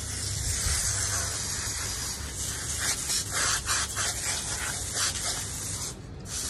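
Garden hose spray nozzle spraying water onto a dog's coat and the wet concrete: a steady hiss that turns uneven and splashy in the middle and drops off briefly near the end.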